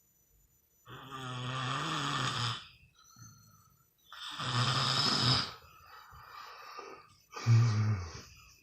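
A sleeping person snoring: three snores about three seconds apart, with softer breathing between them.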